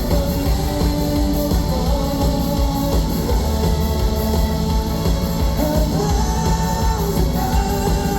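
Live rock band music with singing, guitar, bass and drums, as heard from the audience.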